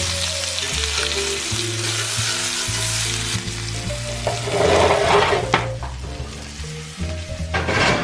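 Chicken thighs sizzling as they fry in oil in a cast-iron skillet, a steady crackling hiss that surges louder for a moment about five seconds in.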